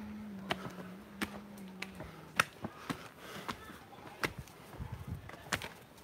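Footsteps on rock while climbing: sharp, irregular clicks and scuffs on stone. A steady low buzz runs through the first two seconds and then stops.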